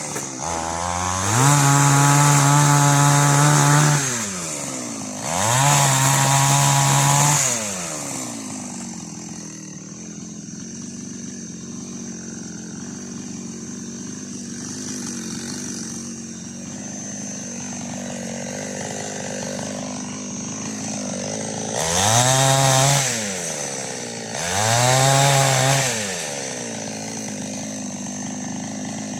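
Preco chainsaw with an 18-inch bar revved up four times, each time holding high for about two to three seconds before dropping back. Between the second and third revs it idles steadily for about fourteen seconds.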